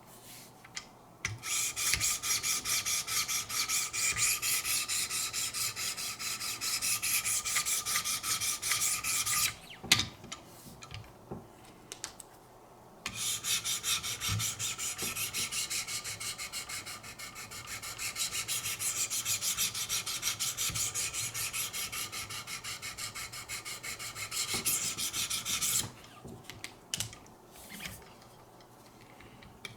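Wicked Edge 600-grit diamond stones stroked quickly and evenly along a knife edge, a steady rhythmic scraping. It comes in two long bouts with a pause and a few clicks between them, and stops about two-thirds of the way through.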